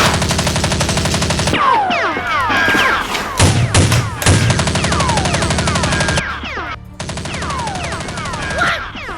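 Rapid automatic gunfire sound effects in three long bursts with short breaks, with a few heavy thumps in the middle and falling whizzing ricochet sounds between the bursts, over background music.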